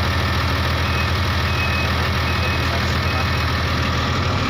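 Case 2050M bulldozer's diesel engine idling steadily, soon after a start, before the throttle is raised.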